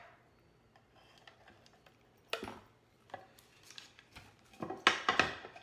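Tape being picked and pulled off a small taped-shut decorative box and the box handled and opened: a few short scraping, rustling handling noises, a brief one about two and a half seconds in and the loudest cluster near the end.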